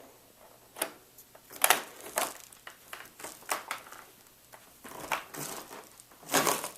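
Crinkling and rustling of handled plastic packaging, in irregular short bursts with a few sharper clicks and quiet gaps between.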